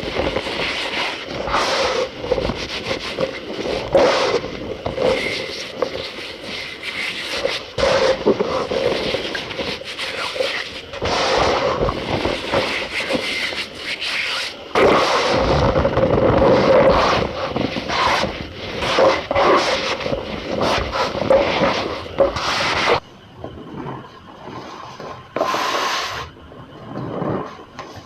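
Cornstarch powder squeezed and pressed by hand, packing with a dense run of squeaky, crunching strokes. It thins out near the end to a few separate squeezes.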